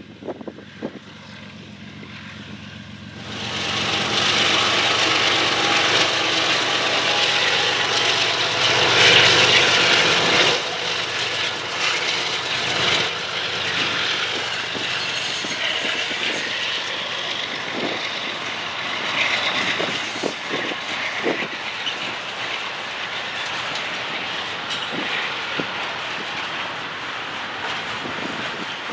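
Union Pacific diesel locomotives, working hard with black exhaust, pass close by, starting suddenly about three seconds in and loudest for the next several seconds. Double-stack container cars then roll past with repeated wheel clicks and clatter over the rails.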